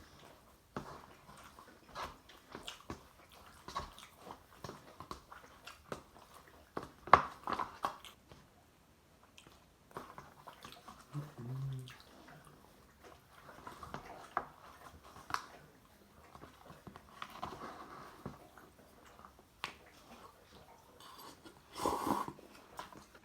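A person chewing instant ramen noodles: scattered wet mouth clicks and smacks. There is a brief low hum about eleven seconds in and a louder noisy sound near the end.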